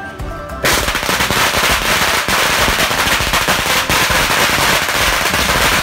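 A long string of Chinese firecrackers going off in a rapid, unbroken rattle of loud bangs, starting about half a second in.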